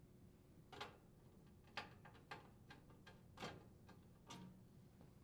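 Faint, scattered clicks and ticks, about five in all, from a screwdriver turning out the screws that hold down the metal main top of an induction range.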